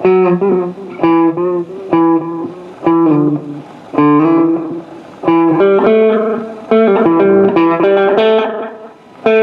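Electric guitar played through a Memphis Echo ME-8 tape delay, plucked notes about once a second that get busier about halfway through. The delayed signal sounds out of tune, which could be because a rubber band stands in for the drive belt.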